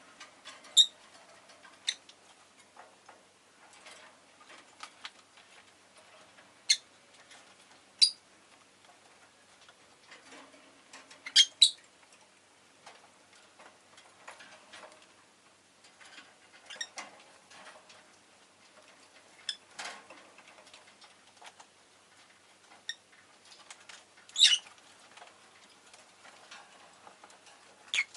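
Rosy-faced lovebird giving short, sharp, high-pitched chirps every few seconds, a quick double chirp near the middle, with faint clicks in between.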